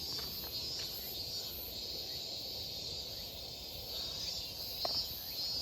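Outdoor insect chorus in late summer: a steady high drone with a second, very high one pulsing about twice a second. A faint short tap comes about five seconds in.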